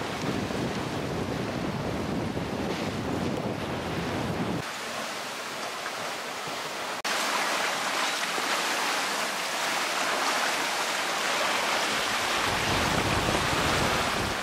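Wind buffeting the microphone, then the steady hiss and rush of water streaming past the hull of a sailing yacht going at over 7 knots, with wind noise returning near the end.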